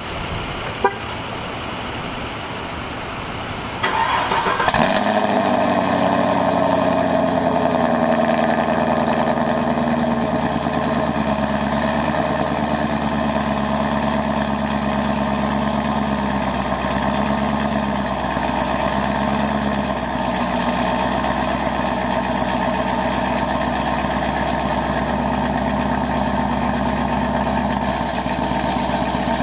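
Chevrolet Camaro SS 1LE's 6.2-litre V8 with an aftermarket exhaust, started about four seconds in, neither fully cold nor fully warm. It catches after a brief crank, runs at a slightly raised idle that eases down over several seconds, then idles steadily.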